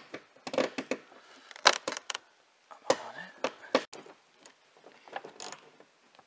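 Irregular small metallic clicks and taps of a long-reach socket and flange nut being worked onto a spoiler bolt through the roof headlining.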